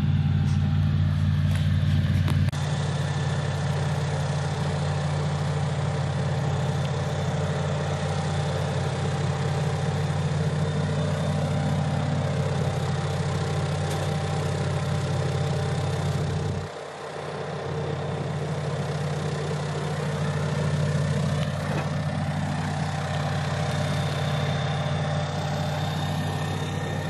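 Airboat engine and propeller running steadily on the lake, a deep droning hum that briefly drops away about two-thirds through.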